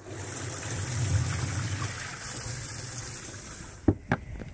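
Bass boat livewell pump running, water gushing into the livewell with a low hum; it starts abruptly and dies away near the end, followed by two sharp knocks.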